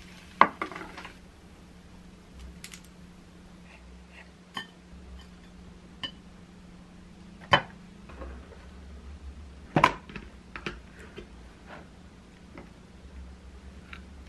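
Tableware being handled: chopsticks and dishes giving scattered sharp clinks and knocks, loudest about half a second in and again near ten seconds. A faint steady low hum runs underneath.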